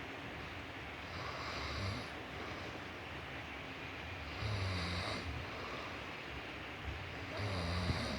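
A sleeping person snoring: three snores about three seconds apart.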